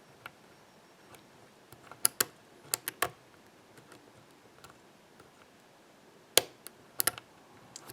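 Small sharp metallic clicks of a hook pick working the spool pins of a Master Lock ProSeries 6121 padlock held under a tension wrench, while the picker hunts for the next spool. A cluster of several clicks comes about two to three seconds in, and a few more about six to seven seconds in.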